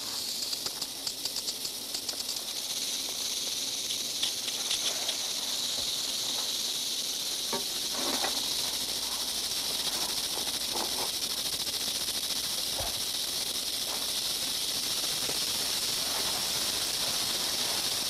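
Western diamondback rattlesnakes rattling: a steady high-pitched buzz from their tail rattles, fluttering quickly in the first couple of seconds. A few scattered knocks and scrapes on rock come through near the middle.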